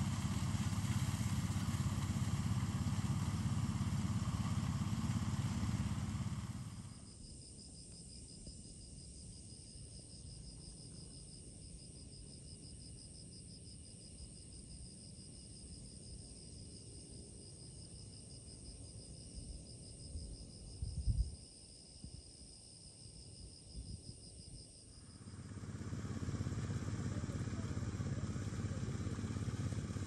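A small engine running steadily. It cuts out after about seven seconds, leaving insects trilling fast and high, with a few low bumps, and the engine comes back near the end.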